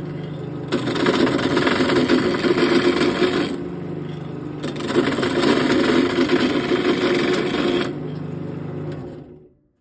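Wood lathe motor humming steadily while a hand-held turning tool cuts a spinning wooden grip blank, in two long cuts of rough scraping with short pauses of motor hum alone between them. The lathe stops near the end.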